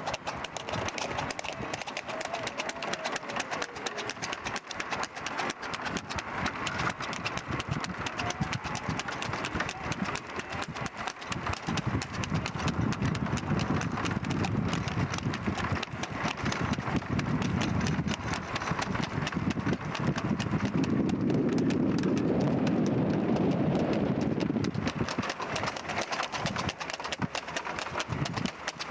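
Horse's hooves clip-clopping fast on a paved road as it trots pulling a two-wheeled tanga cart, with a low rumble swelling twice in the second half.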